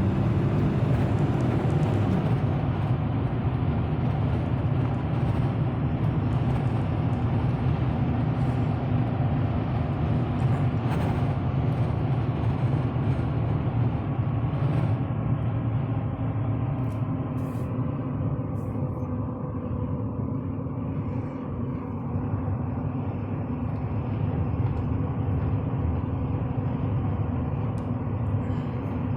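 A 2015 Chevy Silverado 3500's 6.6-litre Duramax turbo-diesel V8 pulling the truck at full throttle, with road noise. It eases to a somewhat quieter, steadier run about halfway through.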